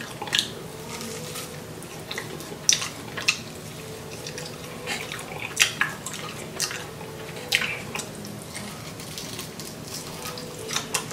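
Wet chewing and lip-smacking from someone gnawing meat off a saucy glazed barbecue rib, with sharp irregular smacks every second or so.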